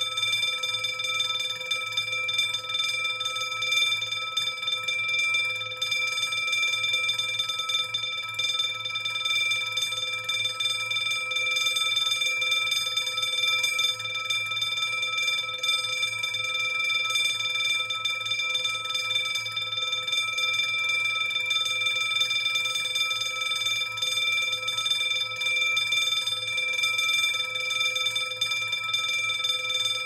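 Electric burglar alarm bell ringing without a break, its metal gong giving several high pitches at once with a rapid, even rattle.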